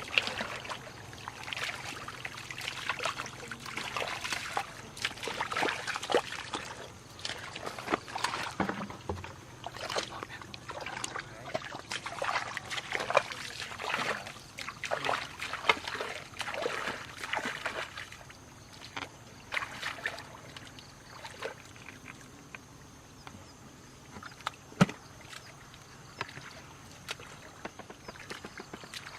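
Irregular water splashing and sloshing, busy for the first half and sparser later, with one sharp knock about 25 seconds in.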